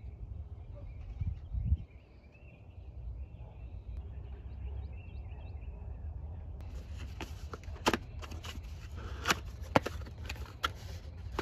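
Unboxing handling sounds: a robot mower's plastic power adapter, its cable and cardboard packing inserts knocking and rustling, with a dull thump about a second and a half in and a run of sharp clicks and taps in the second half. Faint birds chirp in the first half.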